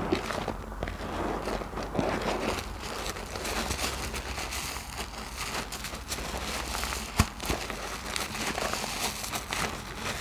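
Kitchen sponge squeezed and kneaded by hand in thick soap foam: wet crackling of suds, with many small pops and one sharper click about seven seconds in.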